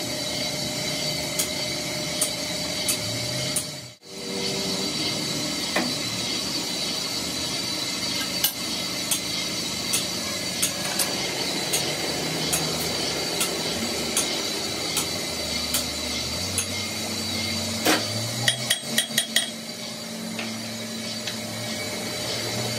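Metal lathe running, its large four-jaw chuck turning a truck drive shaft, with a steady whine and scattered sharp metallic clicks and taps. The sound drops out briefly about four seconds in, and there is a quick run of taps near the end.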